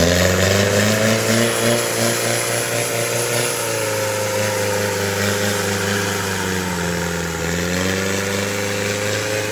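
Diesel engine of a modified mud-racing 4x4 revving hard and held at high revs under heavy load, wheels churning in deep clay mud. Its pitch climbs in the first second, sags briefly about seven seconds in, then climbs back.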